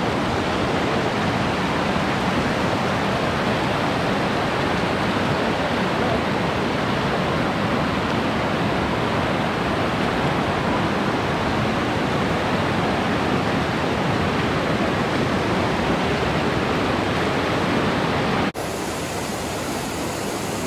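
Class 3 whitewater rapid running high, a loud steady rush of water churning over rocks. About eighteen seconds in it cuts abruptly to a slightly quieter, thinner rush of the same rapid.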